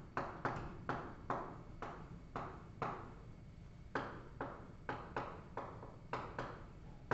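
Chalk writing on a blackboard: a series of short scratchy strokes and taps, about two or three a second.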